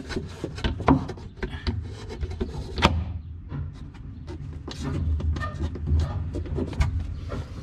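Thin plywood chase cover being handled and fitted back into place in a plywood cabinet: wood rubbing and a string of light knocks and clicks, the sharpest about three seconds in.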